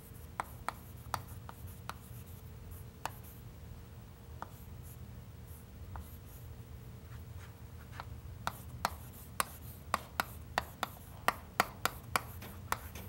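Chalk tapping and scraping on a chalkboard as words are written out by hand. The strokes are sparse at first, then come as a quick run of sharp taps from about eight seconds in, over a steady low room hum.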